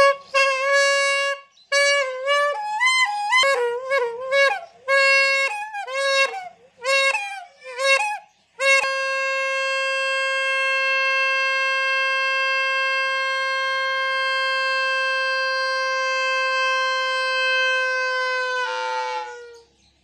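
Green plastic bhopu (trumpet horn) blown by air from a large balloon tied over its reed. First a run of short honks that stop, start and bend in pitch, then, about nine seconds in, one long steady note. Near the end the note sags slightly and sputters out as the balloon runs empty.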